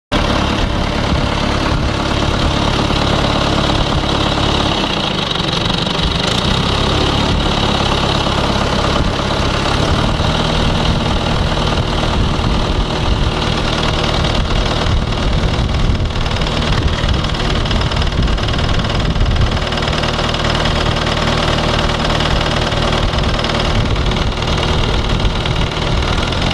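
John Deere 2130 tractor's diesel engine running, with an intermittent rapid knocking and nailing, more machine-gun than heavy thumping, coming from the fan end of the engine. Its note shifts about five seconds in and again about ten seconds in.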